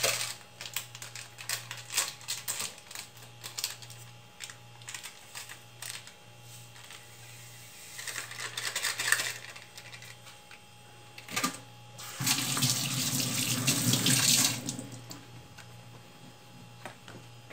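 Kitchen tap running into a sink for about two seconds, the loudest sound here, after light clicks and knocks against the mixing bowl and a brief rustle. A low steady hum lies underneath.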